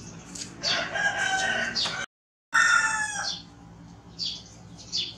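Rooster crowing in two long calls, the first starting about half a second in and the second ending just past three seconds, with a brief dropout between them. Short high chirps come before and after.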